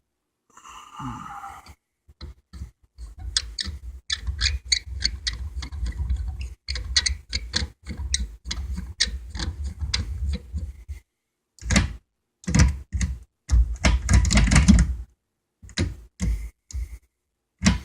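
Manual gear shifter of a Mazda RX-7 being wiggled and worked through its gates: a long run of quick clicks and rattles, then a few heavier clunks. The stick has a bit of play in its aftermarket bushing.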